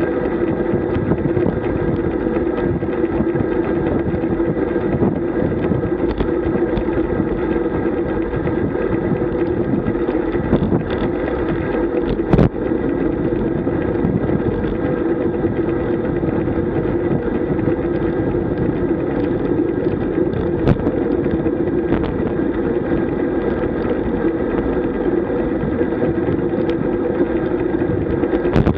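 Ride noise picked up by a bike-mounted camera on a road bike at speed: steady rumble of tyres on the road and wind, with a steady hum underneath. A sharp knock, like the mount jolting over a bump, about 12 seconds in and another about 21 seconds in.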